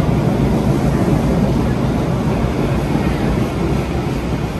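MBTA Blue Line subway train moving along the station platform: a steady low rumble of wheels and motors that eases slightly near the end.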